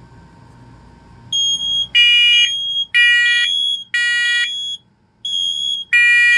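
Several wirelessly interconnected First Alert smoke alarms sounding together on test, including the First Alert SA511. One high beep starts about a second in, then several horns at different pitches join in a three-beep, pause, three-beep evacuation pattern.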